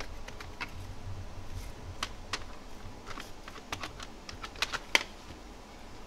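Irregular light clicks and taps of a hard plastic seatbelt pillar trim panel being handled as the seatbelt webbing is fed through it, with a quicker run of sharper clicks late on, the loudest about five seconds in.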